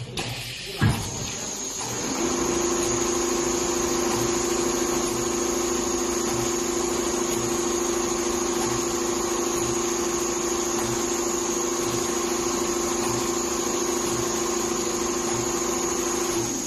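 Four-head computerized leather pattern sewing machine running: a click about a second in, then a steady machine hum with a high whine that sets in around two seconds and holds even.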